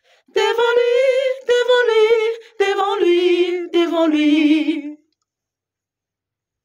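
A singing voice with no accompaniment, held notes with a wide vibrato in four phrases, each pitched a little lower than the last, stopping about five seconds in.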